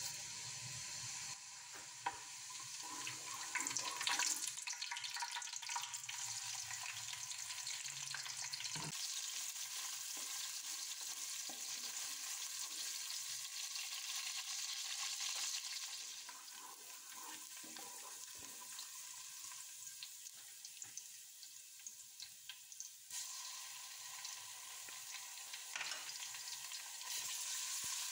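Hot oil sizzling in a stainless steel pot, first as cumin seeds fry with frequent small crackles, then as sliced onions fry. The sizzle drops a little in the middle and comes back louder, with a wooden spoon stirring the onions near the end.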